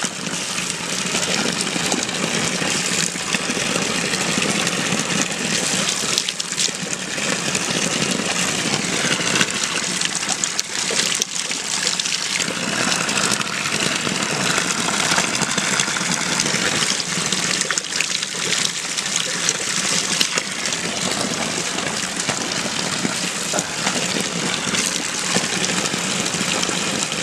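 A steady gush of water pouring from a pipe spout and splashing onto the wet ground below.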